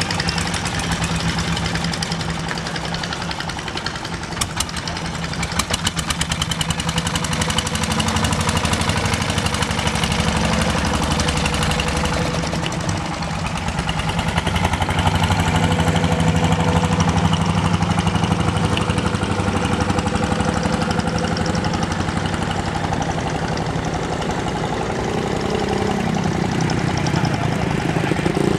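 Small wooden fishing boat's engine running steadily with a fast, even chugging.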